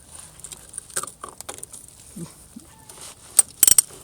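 A few sharp metallic clinks and clicks of a wrench and drain bolt being handled. The loudest cluster comes about three and a half seconds in.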